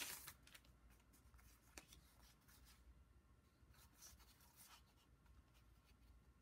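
Near silence: room tone with a few faint rustles and light taps of paper and sticker sheets being handled, a little louder right at the start.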